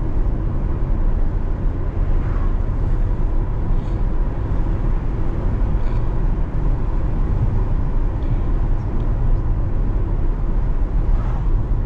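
C8 Corvette driving, with a steady low engine rumble and road noise.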